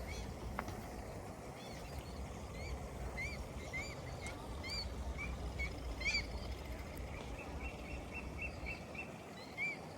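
Small birds calling with many short, arched chirps, including a quick run of repeated notes about seven seconds in, over a low steady rumble.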